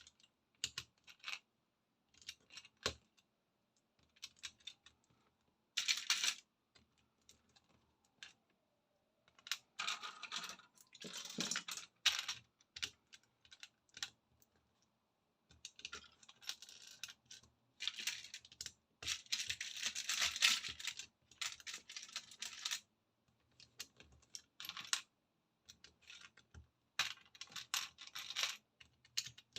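Plastic Lego bricks clicking and clattering in irregular bursts as pieces are rummaged through and pressed together, with denser rattling stretches about a third and two thirds of the way in.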